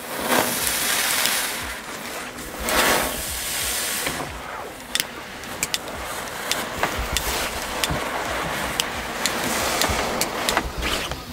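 Small Class 1 ground fireworks burning on the grass: hissing that swells in a few surges over the first few seconds, then scattered sharp crackles and pops.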